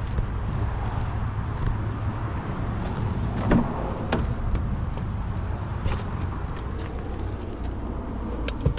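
A vehicle engine idling steadily with a low hum, with a few sharp clicks and knocks over it.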